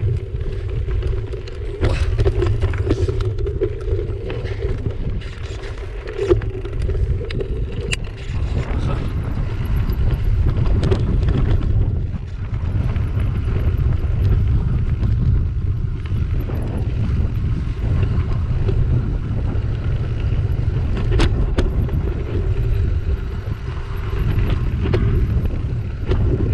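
Mountain bike coasting and bouncing down a rough dirt-and-gravel singletrack: wind buffeting the camera microphone, tyres on loose stones and the bike rattling, with scattered sharp knocks over bumps. A steady buzz runs through the first third and returns near the end.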